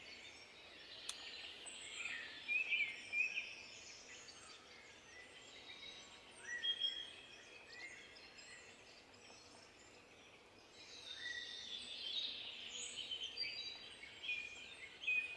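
Faint birdsong: several small birds chirping and calling in short, quick phrases, busier near the start and again toward the end.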